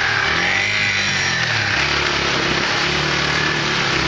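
Trail motorcycle engine revving up and down repeatedly as the bike rides through a shallow river, with water splashing and spraying from the wheels.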